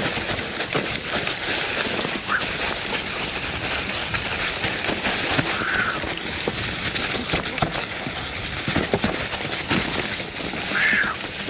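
Mountain bike descending a steep trail over fallen leaves: tyres crunching and sliding through the leaves while the bike rattles and clatters over bumps. Three brief high squeals cut through the noise.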